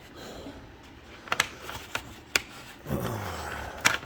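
Plastic handling sounds from a washer-fluid jug and the reservoir cap being worked one-handed: several sharp clicks and knocks, with a short falling creak about three seconds in.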